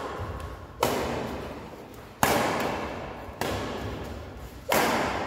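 Badminton rally: a racket strikes the shuttlecock four times, about one and a half seconds apart, each hit sharp and echoing in a large hall.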